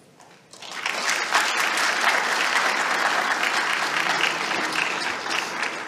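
Audience applauding. Many hands clap together, building up about half a second in, holding steady, then starting to fade near the end.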